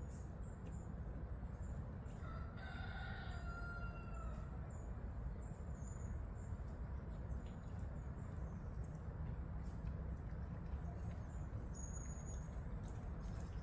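A rooster crows once, a drawn-out call of about two seconds starting a couple of seconds in, over a steady low background rumble, with faint high bird chirps here and there.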